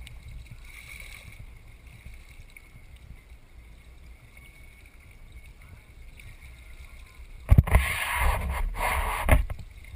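Steady low wash of water along a boat's hull, then, about seven and a half seconds in, loud splashing and knocks for about two seconds where a sailfish is held by the bill in the water at the boat's side.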